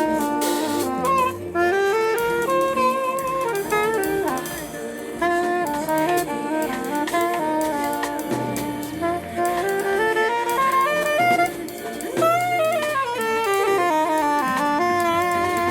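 Jazz combo playing: a saxophone carries the melody over low bass notes and a drum kit with cymbals.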